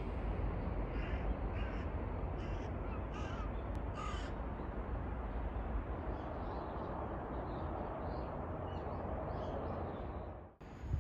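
Crows cawing, a run of repeated caws that stops about four seconds in, over a steady low rumble.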